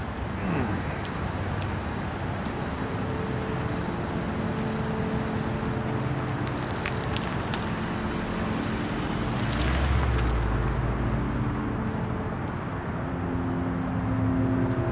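City street traffic: cars driving past on the road, one passing close with a low rumble about ten seconds in and another approaching near the end.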